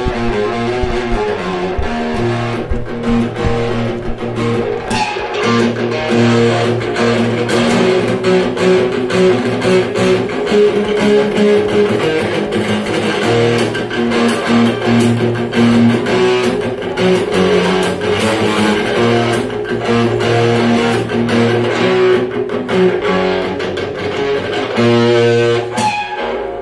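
Electric guitar played through an Alfonso Rock 10 guitar amp, strumming chords in a steady, continuous rhythm during the amp's sound test.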